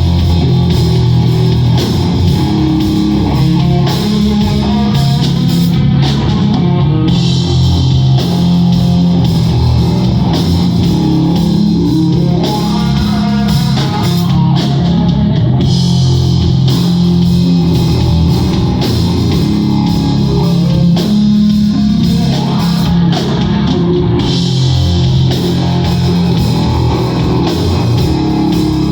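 Live rock band playing loud and steady, with guitar and drum kit.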